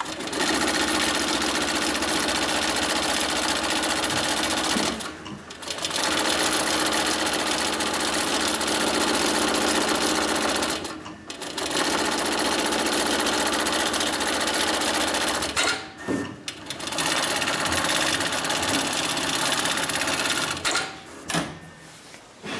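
HighTex MLK600-3020 heavy-duty automatic pattern sewing machine stitching webbing strap at high speed. It runs in several spells of a few seconds, with short breaks between them, and stops near the end with a few sharp clicks.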